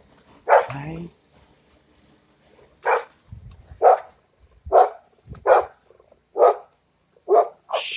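A dog barking in short, sharp single barks: one about half a second in, then after a pause a run of barks roughly one a second from about three seconds in, the last two close together.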